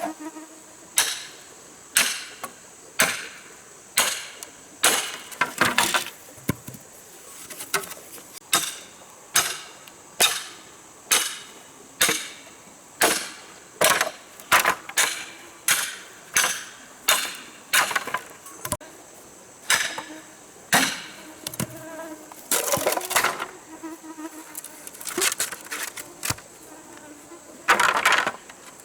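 Repeated sharp strikes, about one a second, of a hand tool working material, over a steady high-pitched insect drone.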